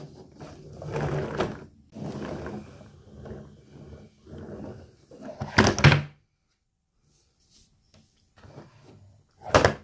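Plastic toy ambulance being handled and knocked against a wooden tabletop: scattered rattles and knocks, then a loud thunk near the end as it is turned over.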